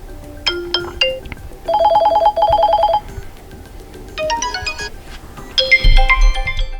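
Vivo iQOO Z8 smartphone ringtones previewed one after another: four short electronic melody snippets, each about a second long with a pause between them. One is a fast run of repeated beeps.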